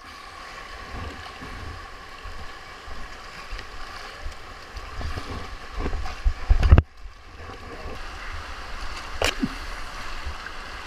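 Whitewater river rushing and splashing around a hydrospeed board riding the current, with a steady hiss of moving water and scattered short splashes. About two-thirds of the way through comes a loud splash, after which the sound briefly drops out.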